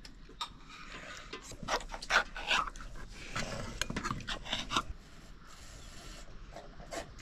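Steel spoons clinking and scraping against steel bowls as people eat, with chewing, in a run of sharp clicks that comes thickest in the first few seconds.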